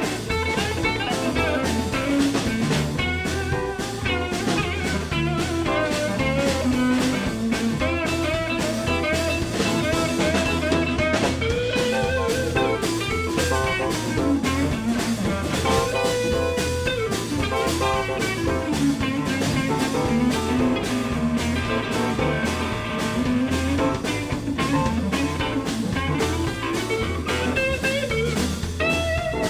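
Live blues band playing an instrumental break, a bending lead guitar line over drums and bass with a steady beat.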